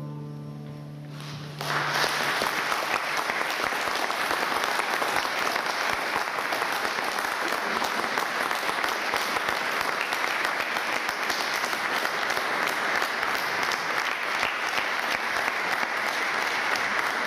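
The last notes of a harp piece dying away, then audience applause breaking out about a second and a half in and carrying on steadily.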